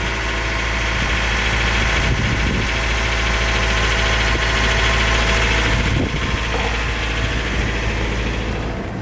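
Sailing yacht's inboard diesel engine running steadily under way: a constant low drone with a rushing hiss over it.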